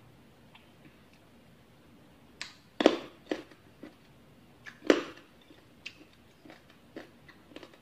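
Close-up eating sounds: chewing bakso aci, chewy tapioca balls in broth, with scattered sharp clicks and knocks from a spoon in the bowl, the two loudest about three and five seconds in.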